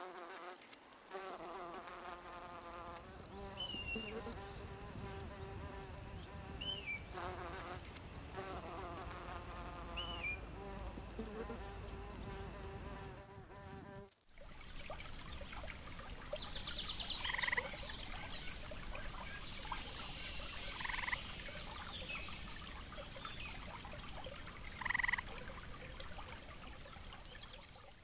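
A fly buzzing in two long stretches over a background of insect chirring, with a few short high chirps. About halfway through it cuts to a steady noisy ambience, where a short two-pitch call sounds three times, about three and a half seconds apart.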